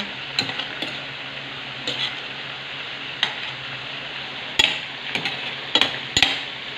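A metal spatula stirring chicken livers in a stainless steel pot of simmering adobo sauce, knocking and scraping against the pot, over the steady hiss of the bubbling sauce. The clinks come scattered, with a quick run of them about two-thirds of the way through.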